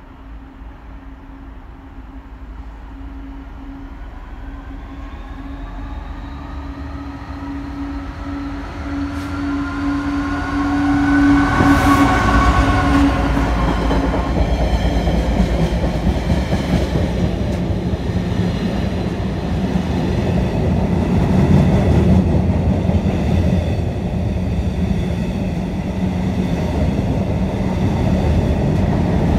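Freight train approaching and passing at speed. The locomotive's pitched running note grows louder and peaks as it passes about twelve seconds in. Then the long rake of container wagons rumbles and clatters past on the rails.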